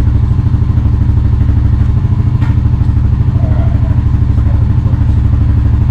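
Honda Rancher TRX350's air-cooled 350cc single-cylinder engine idling steadily and evenly, freshly running after a carburetor rebuild cured its hard starting and stalling; the idle may need a little adjustment.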